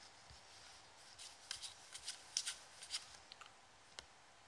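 Basketball trading cards being flicked and slid off a stack one by one by hand: a run of faint papery clicks and swishes, bunched in the middle, with a last click near the end.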